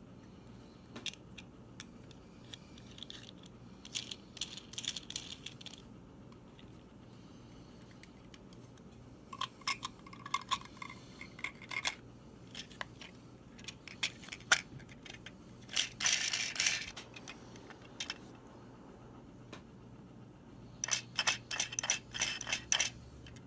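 Small hard plastic parts and candy pieces clicking and rattling in short bursts as the washing-machine candy-drink kit is handled and assembled, with a brief rustle about two-thirds of the way through.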